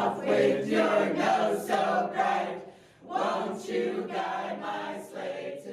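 A small group of voices singing a Christmas song together, in two phrases with a short break about three seconds in.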